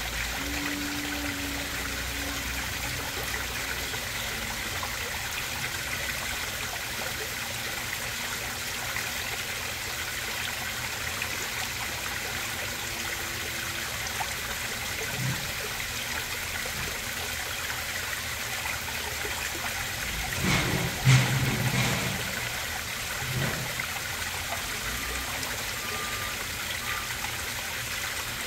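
Steady splashing of a koi pond's waterfall spilling over rocks into the pond. A louder thump with a brief low rumble comes about three-quarters of the way through.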